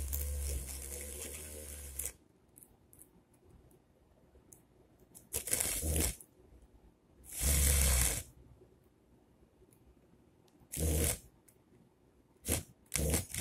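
Homemade drill with a small brushed DC motor, its bit cutting into thermocol. It runs for the first two seconds, fading out, then in four short bursts of a second or less.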